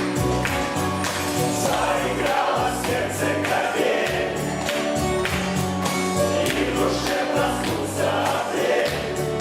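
Music with a steady beat, a bass line and group singing.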